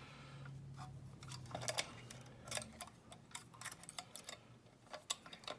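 Lock pick and tension wrench working in a large padlock's keyway: small, irregular metallic clicks and ticks as the pick rakes and sets the pins under light tension.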